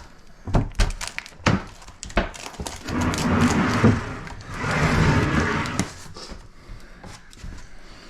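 Building work on a plywood subfloor: a few sharp knocks in the first two seconds, then two longer rough scraping sounds of about a second each, as material is handled and worked.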